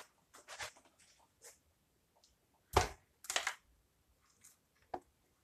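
Things being handled and set down on a wooden workbench: scattered light clicks and rustles, a dull thump about three seconds in, followed by a short rattle and a sharp click near the end as leads are handled.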